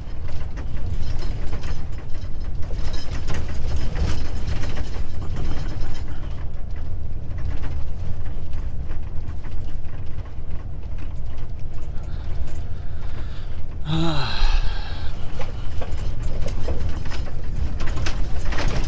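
Truck cab rattling and creaking continuously as the truck jolts over a badly potholed road, over a heavy low rumble of engine and tyres.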